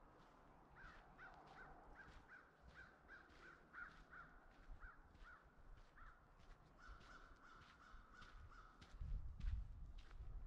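Crows cawing faintly, a run of short calls at about two a second for several seconds, then a few more drawn-out calls. A low rumble near the end is louder than the calls.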